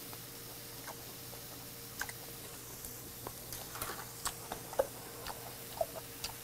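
Close-up mouth sounds of a person chewing grilled wagyu beef topped with sea cucumber innards, mouth closed: irregular small wet clicks and smacks, more frequent in the second half.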